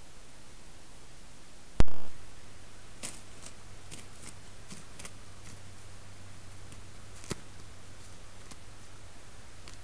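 A sharp, loud click with a short low thud about two seconds in, where the trail camera starts a new clip. It is followed by a steady low hum under hiss, and light, irregular crunching clicks of a white-tailed deer stepping on crusted snow.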